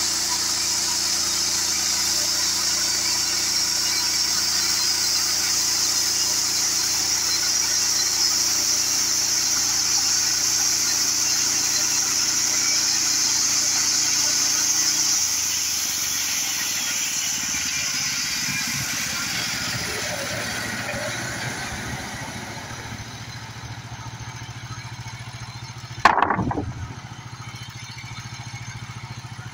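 Gas-engine portable bandsaw mill sawing through a hard, dry sinker maple log: a steady engine drone under the high hiss of the band blade in the wood. About halfway the engine note drops and the cutting hiss fades away as the cut ends, leaving the engine running more quietly. Near the end there is one sharp, loud wooden knock.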